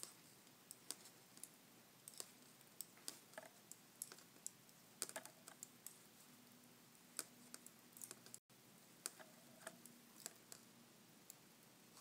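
Metal knitting needles clicking and tapping against each other as stitches are knitted, in faint, irregular clicks a fraction of a second to a second apart.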